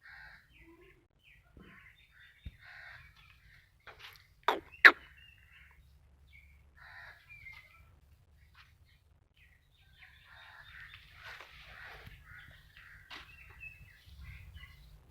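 Birds calling and chirping in short scattered calls. Two sharp knocks close together, about four and a half seconds in, are the loudest sounds.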